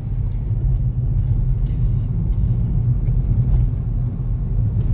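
Steady low rumble of a car on the move, heard from inside the cabin: road and engine noise.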